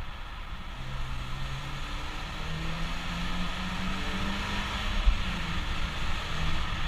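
Inside the cabin of a BMW 320i (E90) at high motorway speed through a road tunnel: steady tyre and wind noise over the low hum of its four-cylinder petrol engine. The engine note edges up in pitch and the overall level slowly grows.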